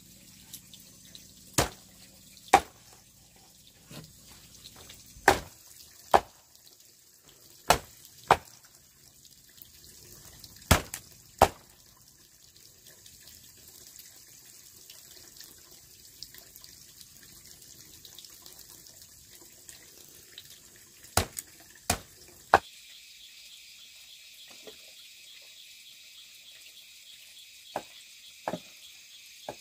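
About a dozen sharp knocks or clacks, mostly in pairs under a second apart, over a faint steady hiss. Two fainter knocks come near the end.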